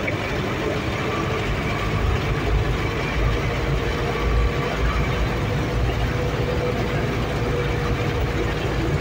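Engine and road noise heard inside the cab of a heavy vehicle driving at a steady speed: a steady low rumble with a faint, constant hum over it.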